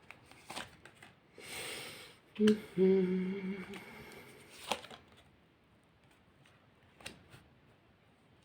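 Tarot cards being handled: a soft rustle of cards and a few light taps as cards are laid down, with a short steady hum from a woman's voice about two and a half seconds in.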